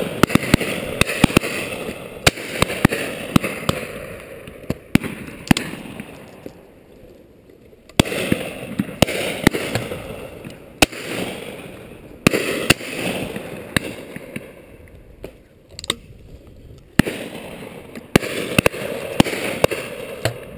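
Shotguns firing irregularly along a line of guns on a driven pheasant drive: sharp reports, a few close and loud, many fainter and more distant. Several of the loud reports are followed by a rushing noise that fades over a couple of seconds.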